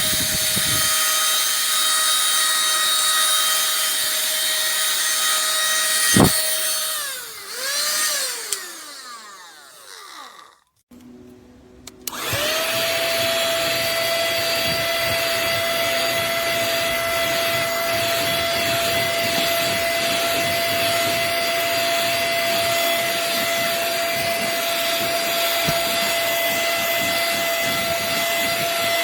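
Cordless handheld mini vacuum cleaner running with a steady high motor whine. About six seconds in it is switched off with a click and its motor winds down, falling in pitch to silence. About twelve seconds in it is switched on again with a click and spins straight back up to the same steady whine.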